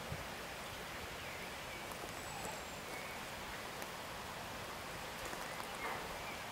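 Steady outdoor background hiss with a few faint, short high chirps from small birds.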